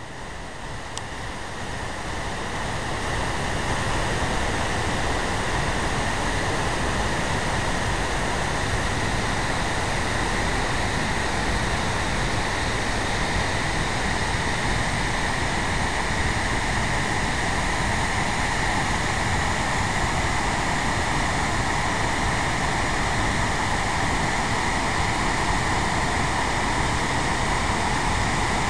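Steady rushing of a large waterfall, the Genesee River pouring over Middle Falls. It grows louder over the first few seconds, then holds steady.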